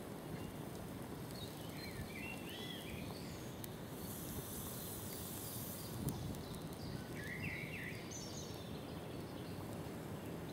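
Woodland ambience: a steady low rushing noise, with a small bird giving a short warbling chirp phrase about two seconds in and another about seven seconds in.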